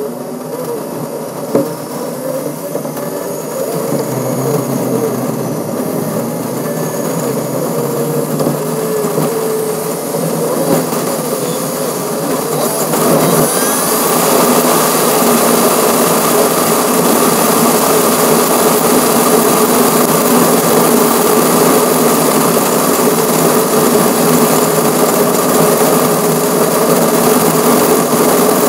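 Wind and road noise at highway speed, picked up by a camera mounted on a car's front grille: a steady rushing noise that grows louder about halfway through.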